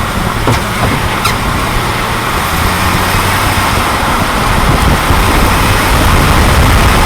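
2004 Jeep Grand Cherokee WJ driving, with two short, high-pitched falling squeaks in the first second and a half, a "crying puppy" sound from the front driveshaft area near the front driver-side wheel, over steady engine and road noise. The owner suspects this is the WJ's known "angry sparrows" noise.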